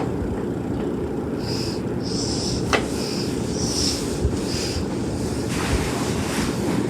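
Ceiling fan running, its moving air buffeting the microphone as a steady rushing noise. Two sharp clicks, about three seconds apart, and a run of five short high chirps in the middle.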